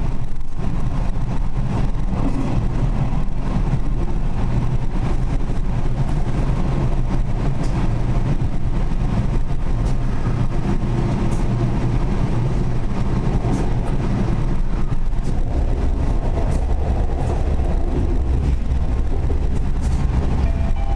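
Running noise inside a Nishitetsu 8000 series limited express electric train: a steady low rumble of wheels and running gear with occasional sharp clicks. The rumble deepens about fifteen seconds in.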